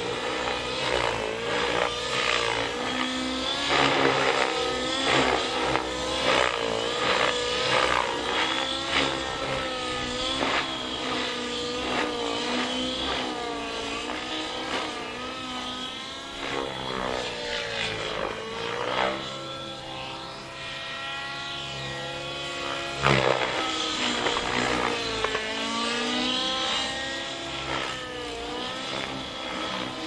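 Nitro glow-engine radio-controlled helicopter flying aerobatics: the engine and rotor buzz, and the pitch keeps rising and falling as it manoeuvres, with repeated short surges through the first half.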